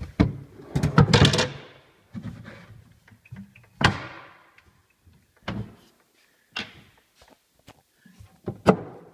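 Hidden compartments and drawers of a black walnut bookcase being pushed shut: a string of wooden knocks and thuds, loudest about a second in and again near four seconds in, with smaller knocks every second or so after.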